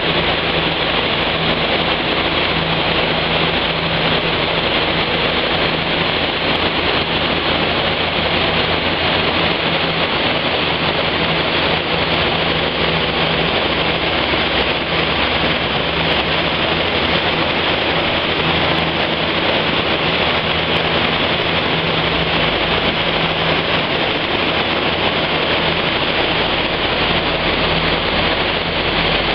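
Small hatchback's engine, fitted with a cone air filter, running on a chassis dynamometer and held at a steady speed. It makes a loud, even hum with rushing noise, and the pitch neither rises nor falls.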